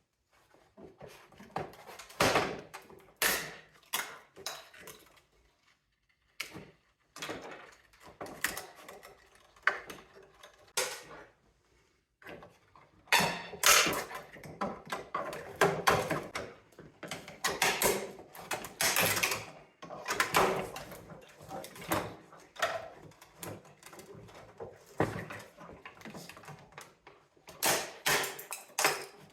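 Plastic and metal parts of a mini split unit knocking, rattling and scraping as it is taken apart by hand, in irregular clatters with two brief lulls.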